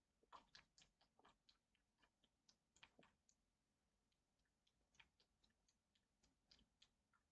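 Near silence, broken by faint, irregular small clicks, bunched in the first few seconds and again near the end.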